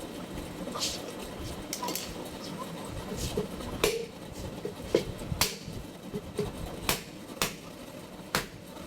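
About ten sharp clicks and light knocks at irregular intervals, from small metal parts and tools being handled during a ceiling fan repair, over a steady low background noise.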